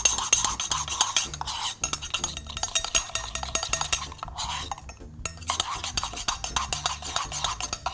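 Metal spoon stirring Turkish coffee grounds and water in a small stainless-steel cezve: quick, continuous clinking and scraping against the inside of the pot, with a brief pause around the middle.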